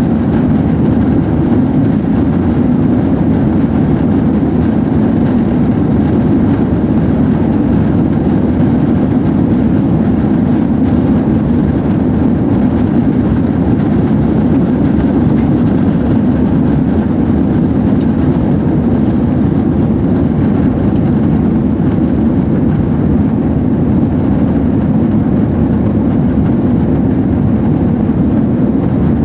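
Airbus A330-200 cabin noise at a window seat: the jet engines and rushing air make a loud, steady low rumble that does not change.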